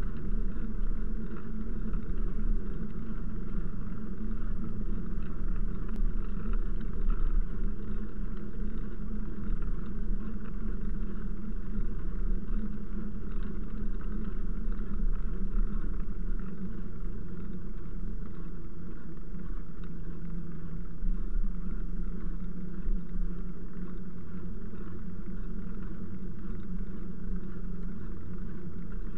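Steady low rumble of wind buffeting the microphone and tyres rolling over a paved path while riding along without a pause.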